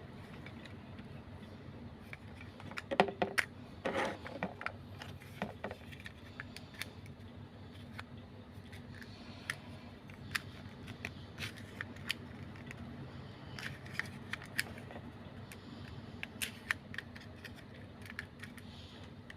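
Scattered small clicks and light rattling from handling a 1:6 scale miniature model pistol, with a cluster of louder clicks and knocks about three to four seconds in, over a steady low hum.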